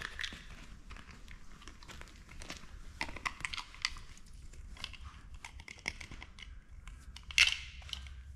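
Dog chewing, with irregular small crunches and crackles and one louder crunch about seven seconds in.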